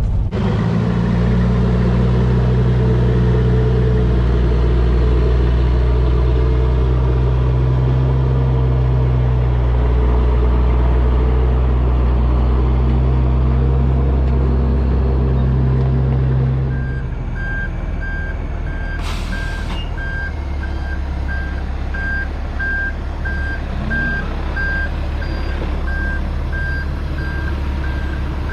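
CAT 259D skid steer's diesel engine running hard under load, then dropping to a lower speed about two thirds of the way through. The machine's backup alarm then beeps in a steady, even string of beeps as it reverses.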